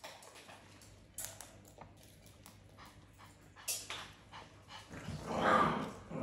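Macaws and a cockatoo cracking seeds, their beaks clicking and scraping in a metal feeding tray. About five seconds in comes a louder animal vocalisation lasting about a second.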